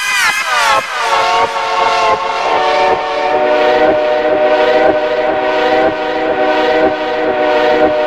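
A phone app's sampled multi-tone train horn, held continuously. Its pitch is slid down sharply in the first second, then the horn holds steady at the lower pitch.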